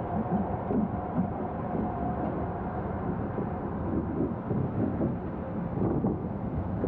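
Mine-train roller coaster running along its track: a steady rumble with irregular knocks and rattles from the cars. A faint steady whine fades out in the first couple of seconds.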